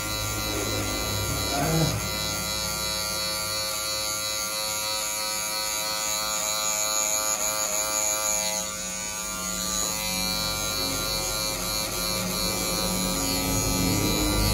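Electric hair clippers running with a steady buzz while cutting hair for a fade.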